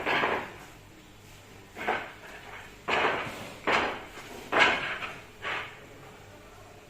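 Billiard balls knocking: six sharp hard clacks and thuds about a second apart, each dying away quickly.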